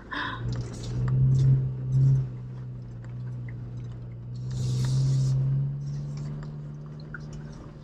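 Jeep Wrangler's engine heard from inside the cab, running low and steady while crawling a rocky trail; its drone swells about a second in and again around five seconds. A brief hiss comes about halfway through, with light clicks and rattles throughout.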